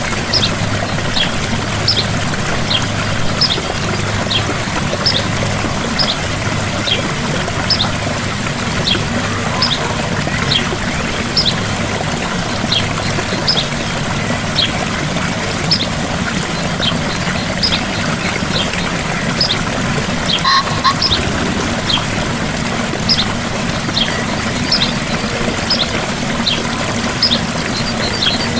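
Gentle waterfall: water falling and splashing steadily. Over it, a bird gives short, high, falling chirps about once or twice a second.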